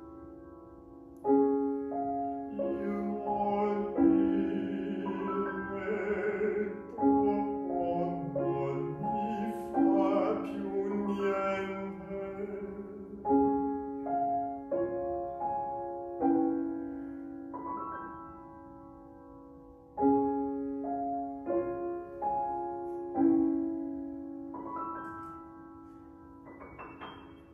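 Grand piano accompanying a baritone singing an art song in a classical style. The voice is heard over roughly the first half, then the piano goes on alone with chords struck every few seconds and left to ring, ending on a rising figure.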